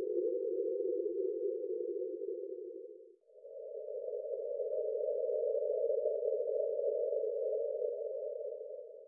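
Breathing-pace guide sound: a steady, hushing noise held at a low pitch, which steps up to a slightly higher pitch about three seconds in. It holds there for about six seconds and drops back to the lower pitch at the end, marking the switch between breathing in and breathing out in a slow rhythmic breathing cycle.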